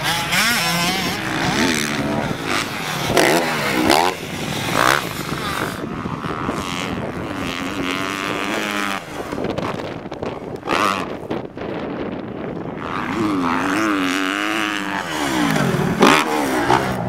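Motocross dirt bike engines revving up and down, the pitch rising and falling again and again, with louder swells of throttle a few seconds in and near the end.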